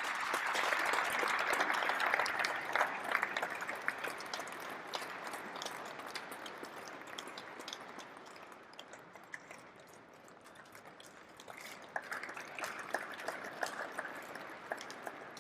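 Audience applauding, strongest in the first few seconds and fading away, then picking up again about twelve seconds in.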